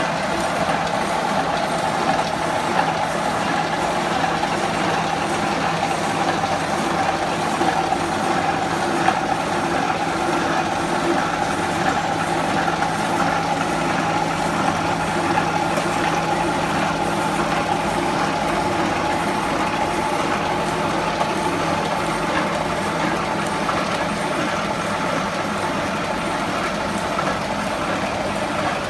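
Automatic welded roll-mesh wire welding machine running: a steady mechanical hum with a constant low drone underneath.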